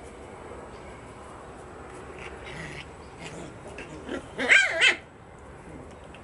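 Puppies yelping while they play-fight: two quick, loud, high-pitched yelps about four and a half seconds in, with fainter yips a couple of seconds before.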